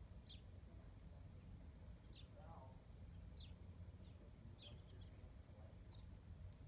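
A small bird chirping faintly: five short, high, falling chirps a little over a second apart, over a low steady background rumble.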